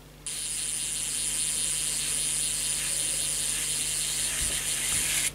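ATuMan E3 electric precision screwdriver's motor and all-metal planetary gearbox running steadily, driving a small screw into a mobile phone at torque setting one. It starts a moment in and cuts off suddenly near the end, as the screwdriver stops on reaching its set torque.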